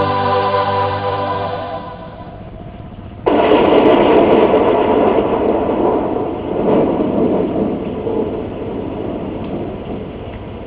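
A choir's held chord fades out, then about three seconds in a loud, even rushing noise starts suddenly and slowly dies down.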